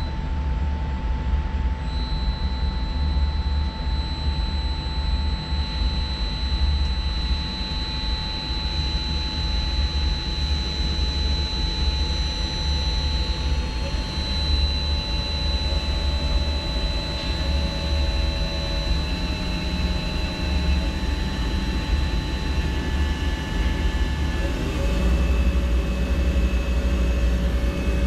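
Milltronics Partner 1G CNC vertical machining center running its spindle with no tool in it: a steady electric whine over a low hum. In the middle a tone steps up in pitch several times, and it drops back near the end.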